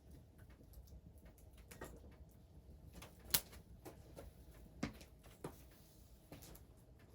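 Scattered light clicks and knocks, with one sharper snap about three seconds in.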